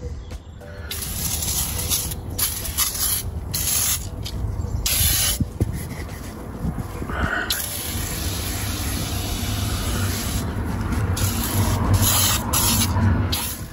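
Aerosol can of Scotchgard fabric spray hissing in a series of bursts, some short and a couple lasting two to three seconds, as foam is sprayed onto car carpet.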